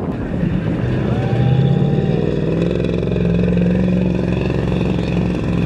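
Diesel pickup truck engine held at high revs under hard throttle, a steady drone, with a brief high whistle about a second in.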